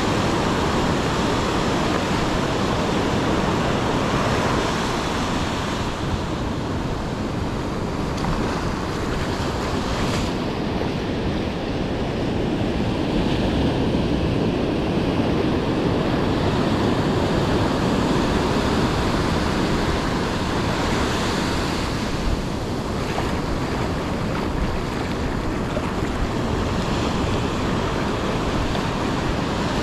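Surf breaking and washing on a beach, swelling and easing, with wind on the microphone.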